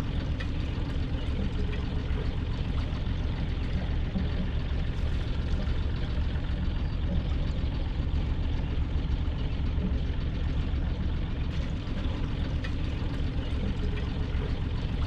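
Sailboat's engine running steadily at low speed with a low, even rumble.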